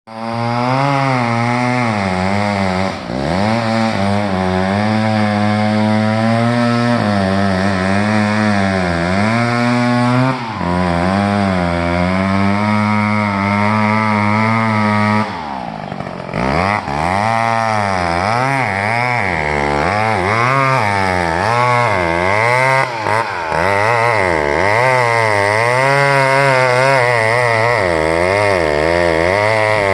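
Chainsaw running under load while cutting into a tree trunk, its engine pitch wavering up and down as it bites into the wood. The revs drop briefly about three seconds in and again around the middle, then pick back up.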